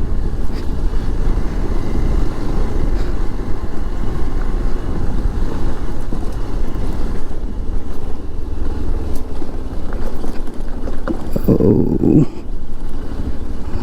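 Hero XPulse single-cylinder motorcycle riding over a rough off-road track, its engine running under a heavy rush of wind on the helmet-mounted microphone. About eleven and a half seconds in, a short, louder pitched sound stands out for under a second.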